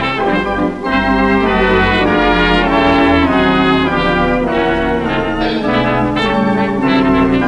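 A 1927 Victor 78 rpm jazz record: a small hot jazz band with pipe organ plays steadily, the horns carrying held notes and chords.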